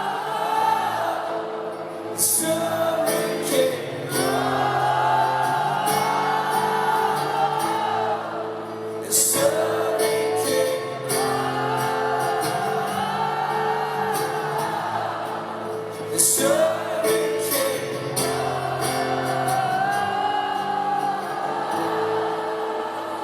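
Live acoustic rock music: voices holding a wordless "oh" melody over steady guitar chords, with sharp hits about every seven seconds.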